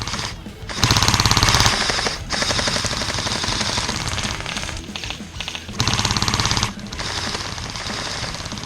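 Airsoft electric rifles firing full-auto in rapid bursts. Two louder bursts of about a second each come about a second in and about six seconds in, with quieter rapid fire in between.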